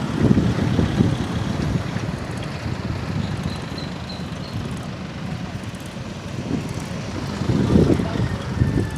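Wind buffeting a phone microphone while cycling, over road rumble. Gusts come and go and are strongest near the start and around eight seconds in.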